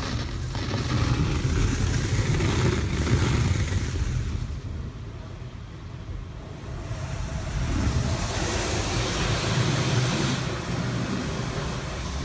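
Automatic car wash running over the car, heard from inside the cabin: a steady hiss of water spraying on the body over a low rumble, swelling louder twice, at the start and again near the end.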